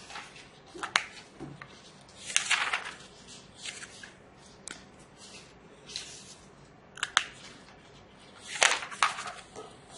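Felt-tip marker scratching on textbook paper in short strokes, with page handling, paper rustles and sharp clicks about a second in and again about seven seconds in.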